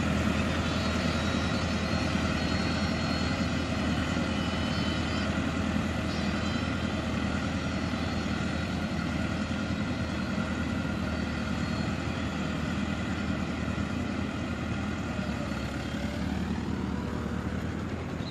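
Farm tractor's diesel engine running steadily under load as it drags a leveling board through a flooded paddy field, slowly growing fainter as it moves away.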